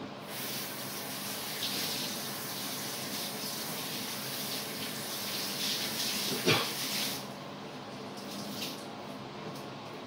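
Water running from a tap, a steady hiss that stops about seven seconds in, with a sharp knock shortly before it stops.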